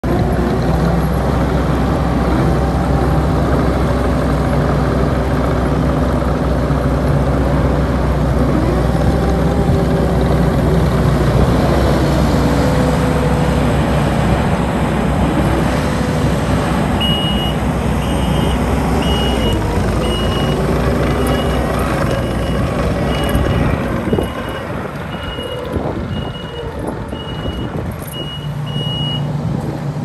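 Kubota SVL75-2 compact track loader's four-cylinder diesel engine running steadily under throttle as the machine moves about. About halfway through, its backup alarm starts beeping at an even pace, roughly three beeps every two seconds, and the engine runs lower for the last few seconds.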